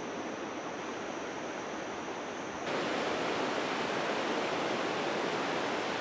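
Steady rush of running water. It turns abruptly louder and fuller about two and a half seconds in, and a thin, steady high tone sounds over it before the change.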